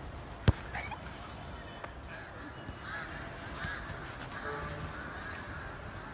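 One sharp thump about half a second in, over steady outdoor background noise, with faint short calls in the background.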